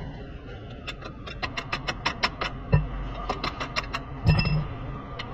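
Hand ratchet clicking in two quick runs, about eight clicks a second, as the ball-joint nuts on a lower control arm are turned. Two dull knocks come in between, the louder one about four seconds in.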